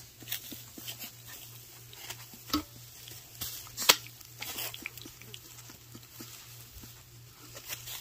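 Basset hound puppies eating wet puppy mush from a stainless steel feeding pan: quick, irregular smacking and lapping clicks, with one louder sharp click about four seconds in.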